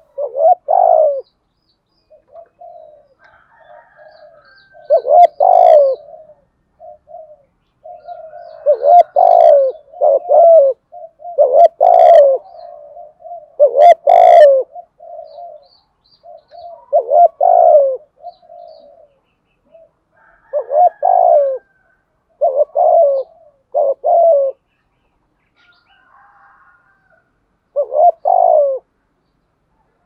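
Spotted dove cooing: repeated phrases of low, throaty coo notes, loud every few seconds with softer notes in between.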